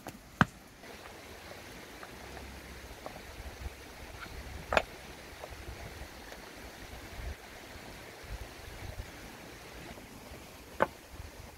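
Three sharp clacks of river stones knocking against each other as they are set in place, four to six seconds apart, each with a brief ring.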